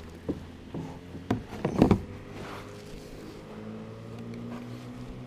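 Knocks and clatter of gear being handled on a plastic fishing kayak, a paddle and rod moved about, loudest in a cluster around two seconds in. Underneath is a steady low motor hum.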